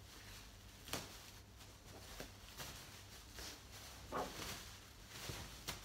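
Large black plastic bag rustling and crinkling as it is gathered and handled, in several short bursts, the loudest about four seconds in.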